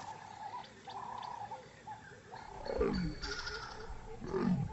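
Leopard giving two short calls a second and a half apart, each falling steeply in pitch, with faint chirping in the background.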